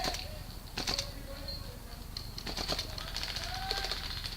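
Airsoft guns firing: scattered single sharp clacks and a short rapid burst about two and a half seconds in.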